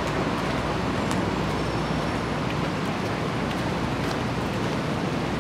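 Steady city street noise: a continuous rush of traffic, with a few faint clicks.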